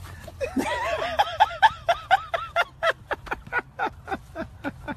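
High-pitched laughter: a fast, unbroken run of short 'ha' pulses, about five a second, starting about half a second in.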